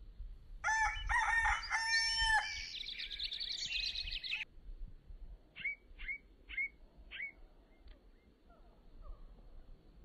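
A rooster crows once, a several-note cock-a-doodle-doo ending in a long falling note. A few seconds later a small bird gives four short downward chirps, with a low rumble underneath throughout.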